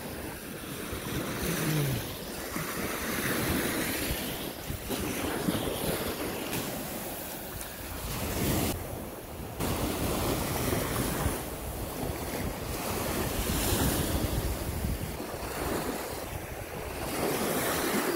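Sea surf washing onto the beach, rising and falling in slow swells, with wind gusting on the microphone.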